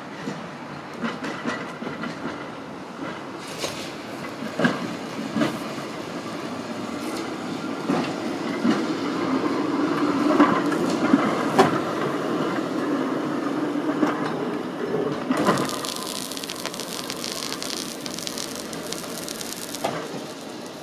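Heritage electric tram running past on steel rails: a rolling rumble with sharp clicks and knocks from the wheels and track, building to its loudest about ten seconds in. About fifteen seconds in, a loud hiss of escaping air starts and runs for about five seconds before cutting off.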